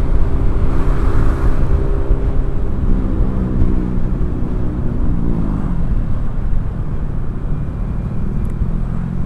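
Honda Vario 125 scooter's single-cylinder engine running at road speed under heavy wind rush on the helmet microphone. Its pitch falls over a few seconds around the middle, then holds steady and lower.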